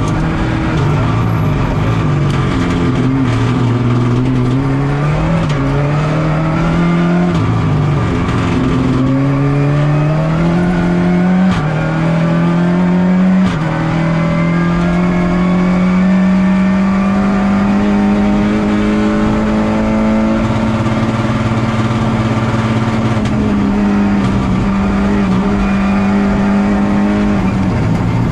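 Rally car engine heard from inside the cabin at full stage pace, revs climbing and dropping back at each gear change in the first half, then held high and nearly steady over a long fast stretch.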